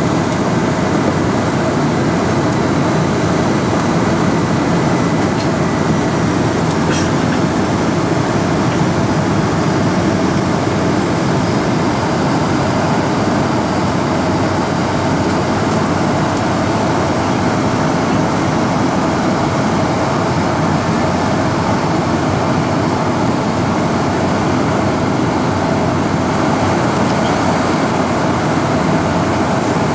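Steady cabin noise inside a Boeing 747 on its descent: engine and airflow rumble heard through the fuselage, with one brief click about seven seconds in.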